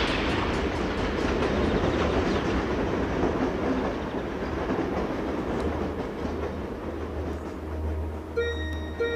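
A dense, steady rushing and rumbling noise from a film soundtrack, slowly fading. Near the end, soft chime-like music notes come in.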